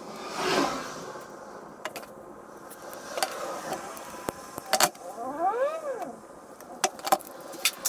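Scattered small clicks and taps of hand work on a wiring connector, as wire cutters are handled and crimped terminal pins are pushed back into a plastic connector housing. About five seconds in, a short whine rises and falls once.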